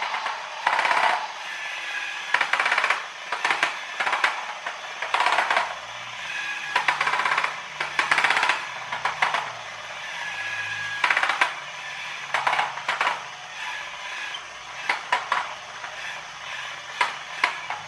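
Transparent plastic model four-cylinder engine (Haynes HM04R kit) driven by its geared electric motor, its gears and pistons clattering and rattling in irregular bursts about every one to two seconds. The mechanism is struggling: the owner suspects a split pinion gear on the motor and a stiff drivetrain.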